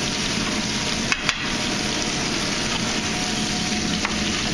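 Beef short ribs sizzling steadily as they brown in a hot pan, fat rendering out of the meat. A little over a second in, two sharp clicks as metal tongs knock against the pan while turning the ribs.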